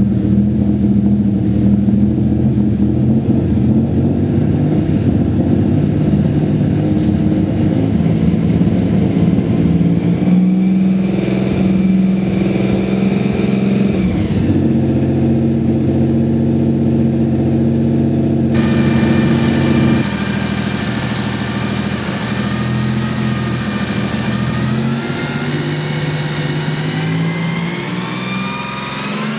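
Nissan VG30DETT twin-turbo V6 engine running, with a strange noise the owner is asking about. Its note is steady for the first ten seconds, shifts a few times, and from a little past halfway a whistling whine joins it, rising in pitch near the end.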